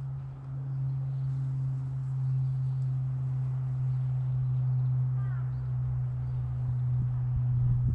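A steady low hum, with a brief high chirp about five seconds in.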